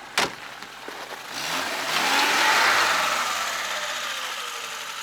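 Lada Niva's engine revving hard about a second in, held high and then slowly easing, with a wide hiss of wheels spinning in deep snow: the car is stuck in a snowdrift and not getting out. A short sharp click just at the start.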